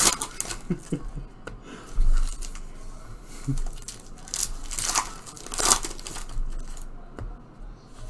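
Panini basketball trading card packs being torn open by hand, with several short rips and wrapper crinkling.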